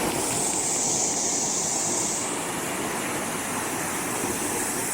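Small waterfall running steadily: an even rush of falling water.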